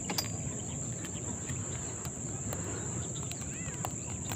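Insects trilling in one steady, unbroken high-pitched tone, with a few faint bird chirps in the second half and a sharp click just after the start.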